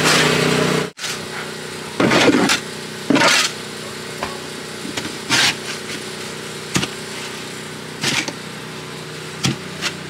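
Plastic snow shovel scraping across a deck and pushing snow, in about seven short scrapes at uneven intervals, the first the loudest. Under them runs a steady motor hum.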